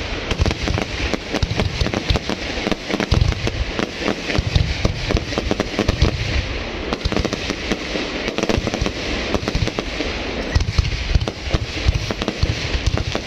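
Aerial fireworks bursting overhead in rapid succession: a continuous volley of low booms and many sharp crackling pops.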